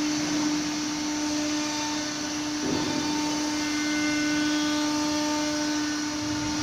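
Wood-panel CNC router with an automatic tool changer running: a steady hum from its spindle over an even rushing noise, without a break.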